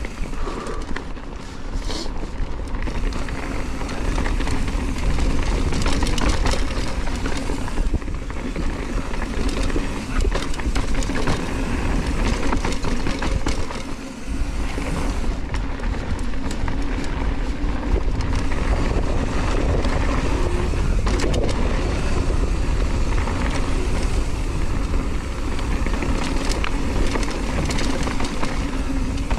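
On-One Scandal hardtail mountain bike riding fast down a loose gravel and dirt trail: tyres crunching over stones, with the chain and bike rattling over bumps and a steady low rumble of air rushing past the camera. The noise dips briefly about halfway, then comes back.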